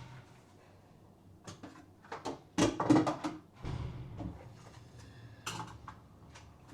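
Kitchen clatter while washing dishes: scattered knocks and clinks of dishes and kitchenware, the loudest cluster near the middle and a few more knocks later.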